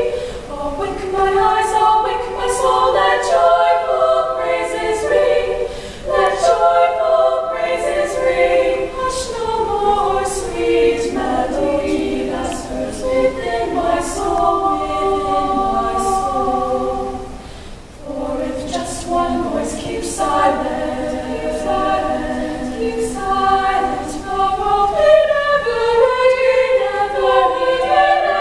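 Small women's choir singing a cappella in several parts, with held, overlapping chords and no accompaniment; the sound thins briefly about eighteen seconds in before the voices come back in full.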